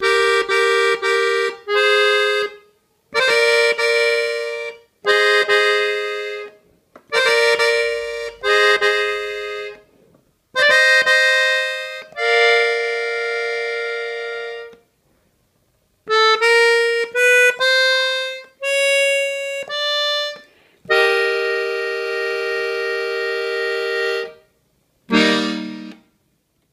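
Button accordion played slowly, phrase by phrase: held reed chords broken by short pauses, ending on a single low note about a second before the close.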